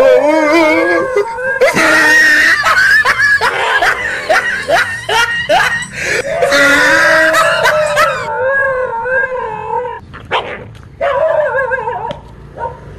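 A frightened dog barking in rapid yips mixed with wavering, howling cries. The barking is densest for most of the first eight seconds, then thins to scattered barks and whines.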